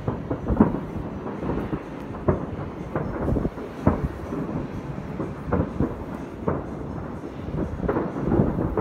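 Distant fireworks going off all over a city: a dense, irregular string of bangs, several a second at times, over a continuous low rumble.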